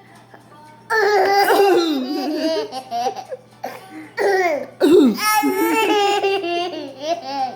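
A small child laughing in high-pitched bouts, the first about a second in and a longer one from about four seconds.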